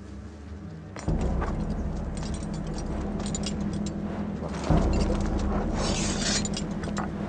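A low, steady drone that steps louder about a second in and again near five seconds, under rapid metallic jingling and clinking of horse harness and hussar uniform fittings as the horsemen move.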